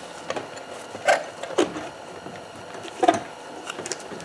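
Honda EP3 electric power steering rack being pulled apart by hand, its metal shaft and housing knocking and clicking several times as they are slid and shifted, the loudest knocks about a second in and about three seconds in.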